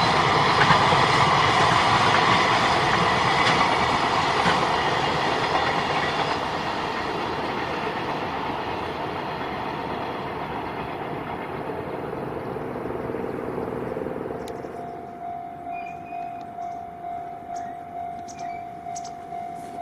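A JR Freight train hauled by an EF210 electric locomotive rolling past on the rails, its wagons' wheel noise slowly fading as it draws away. Near the end a level-crossing warning bell rings with a steady, evenly repeating clang.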